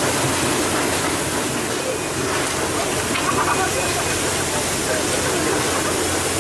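Steady rushing and hissing of water spray and sea along the side of a tuna pole-and-line fishing boat.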